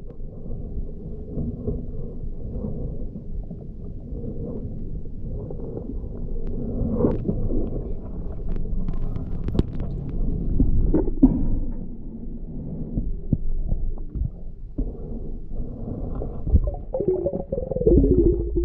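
Muffled underwater rumble from water moving around a submerged camera housing while a spear gun is carried through a river, with a few sharp clicks and knocks in the middle. A wavering pitched sound comes in near the end.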